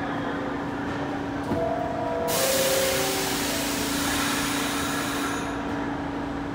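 R46 New York City subway train standing at the platform: a steady hum, a few short tones, then about two seconds in a sudden loud hiss of air that fades out about three seconds later.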